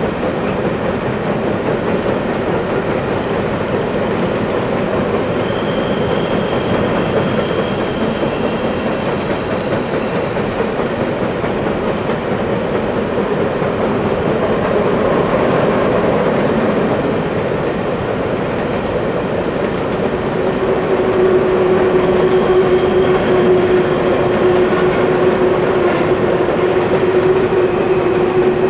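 Canadian Pacific coal hopper cars rolling across a steel truss railway bridge: a steady, continuous rumble and rattle of wheels on rail. A thin high wheel squeal rings out for several seconds from about five seconds in, and a steady low hum joins about twenty seconds in.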